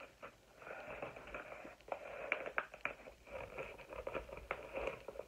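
Rustling of packaging being handled, with scattered small clicks and taps.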